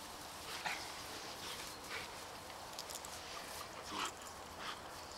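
Faint, short, irregular noises from a dog tugging on a toy held by a person.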